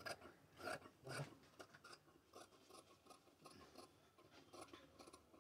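Faint snipping of large tailor's shears cutting through blouse cloth, in short, irregular strokes.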